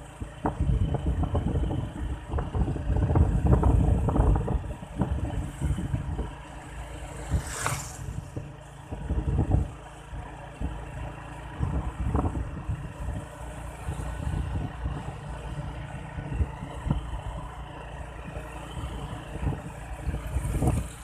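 Outdoor wind buffeting a phone's microphone: an uneven, gusty low rumble, strongest in the first few seconds, with a brief whoosh about eight seconds in.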